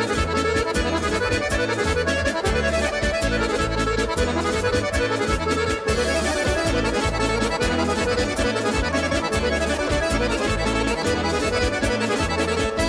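Instrumental break of a Balkan folk song: accordion carrying the melody over a steady dance beat with a pulsing bass line.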